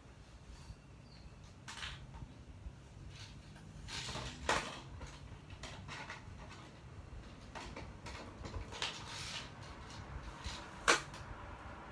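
Small plastic knocks, clicks and rustles from LEGO robots being handled and set down in a plastic toy arena, with a sharp knock about four and a half seconds in and a louder one near the end.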